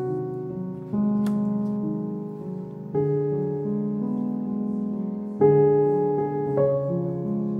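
Slow background piano music: a new chord about every one to two seconds, each left to ring and fade.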